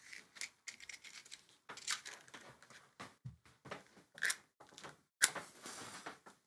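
Small clicks and scrapes of a matchbox being handled and a match drawn out, then a match struck about five seconds in: a sharp scrape followed by about a second of hiss as it flares.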